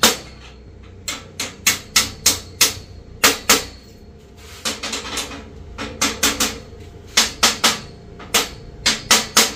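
Hammering: sharp, loud strikes in quick runs of two to five blows with short pauses between runs.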